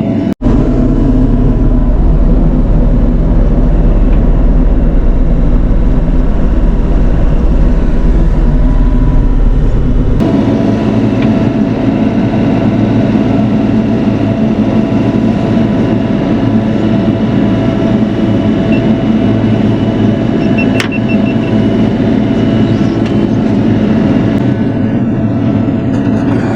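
Bobcat E42 mini excavator's diesel engine running steadily at working throttle while the machine pushes a large tree. There is a momentary dropout just after the start and an abrupt shift in the engine's low rumble about ten seconds in.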